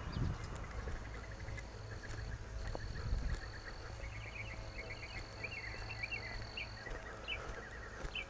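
Outdoor ambience: small birds chirping in quick runs of short notes from about halfway in, and a steady high-pitched tone that breaks off briefly early on and stops near the end, over a low rumble.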